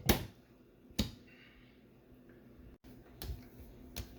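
A few sharp knocks or taps: two louder ones about a second apart near the start, then softer ones near the end.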